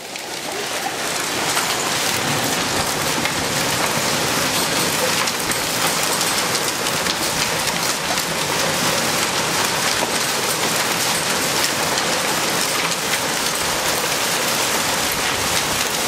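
Hail and heavy rain pelting a gravel yard and concrete: a dense, steady hiss of countless small impacts that fades in over the first second or so.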